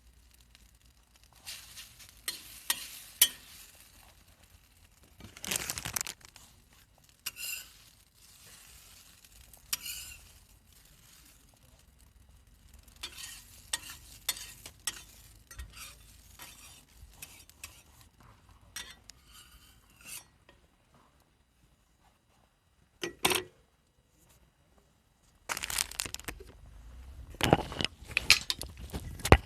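Cooking on a thick homemade iron griddle plate: food sizzling, with irregular bursts of metal utensils scraping and clattering on the plate and a few sharp clicks. It goes almost quiet for a few seconds about two-thirds of the way through.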